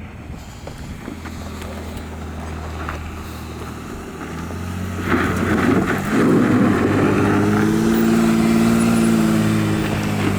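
Four-wheel-drive vehicle's engine working under load as it crawls up a rock obstacle off-road. About halfway through, the revs rise and then hold high and loud.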